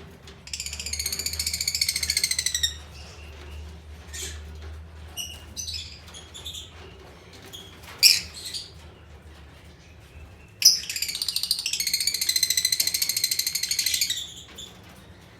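Lovebirds calling. There are two long, rapid, high-pitched chattering trills of about two to three seconds each, one near the start and one from about two-thirds in, with short sharp chirps between them, the loudest about halfway through.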